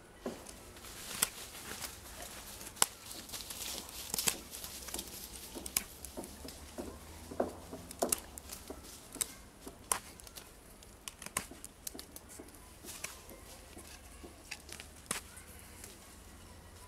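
A knife carving a wooden stick: short, irregular shaving and scraping strokes as the blade cuts into the wood, pointing the end of a stake and rounding its edges.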